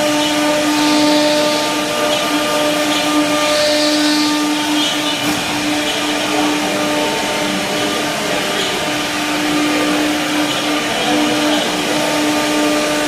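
Laser cutting machine running: a steady whirring drone with a constant low hum, the sound of its fans and blower at work.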